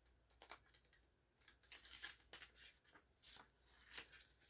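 Faint paper rustling and light clicks from a small paper instruction manual being handled and put away.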